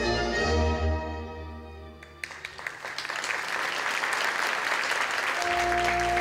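Orchestra playing ballet music that fades out about two seconds in. Audience applause then breaks out and carries on, and the orchestra starts playing again under it near the end.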